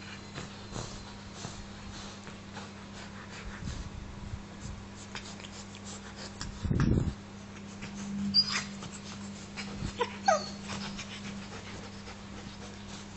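Australian Shepherd dog whimpering: a short high squeak, then a quick falling whine about ten seconds in. A dull low thump comes about seven seconds in, with light clicks over a steady low hum.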